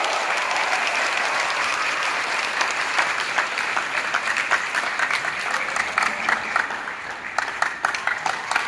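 Audience applauding in an auditorium: a dense wash of clapping that thins toward scattered, separate claps in the second half.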